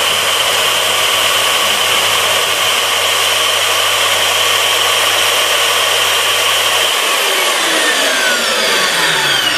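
Fein KBM 50 Auto magnetic core drill running in second gear, cutting a 20 mm hole in steel plate with a steady high motor whine. About seven seconds in a low hum stops and the motor's pitch starts falling as the drill winds down with the hole finished.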